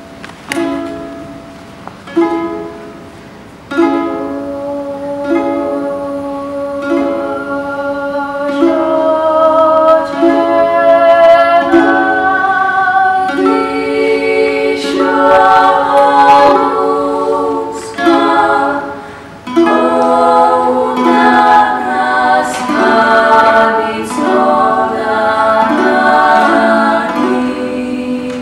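A strummed Georgian lute keeps a steady rhythmic accompaniment while women sing a Megrelian folk song: the lute alone for the first few seconds, a single voice coming in, then several voices joining in close harmony about halfway through.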